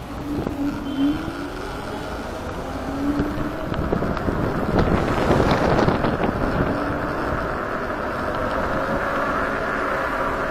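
Wind rushing over the microphone with road and traffic noise during a ride on a Kaabo Wolf Warrior 11 electric scooter. It swells louder about halfway through, then settles.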